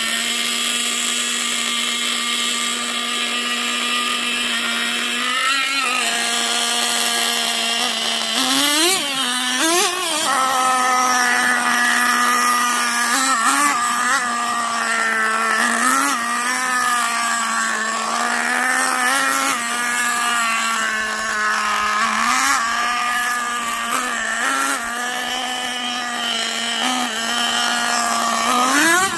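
Small two-stroke engine of a fuel-powered RC truck, first idling with a steady high buzz, then revved up and back down in short blips again and again as the truck is driven.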